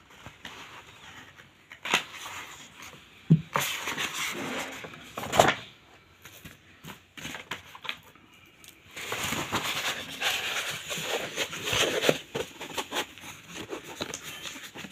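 A stiff sheet of chart paper being cut with scissors and handled: irregular rustling and crinkling with a few sharp snaps, the rustling busier in the second half.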